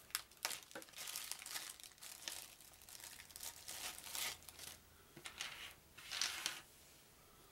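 Packaging crinkling and rustling in irregular bursts as it is handled; the sound stops shortly before the end.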